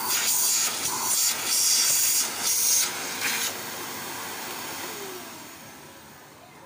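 Modena canister vacuum cleaner running, a loud hissing rush of air that surges and drops several times in the first few seconds, then its motor winds down with a falling whine and fades away.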